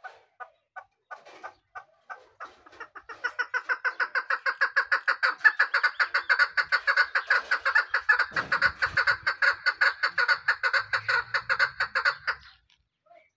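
Caged male partridge calling: scattered short notes that run together about three seconds in into a long, loud, evenly repeated series of several notes a second, breaking off about twelve seconds in.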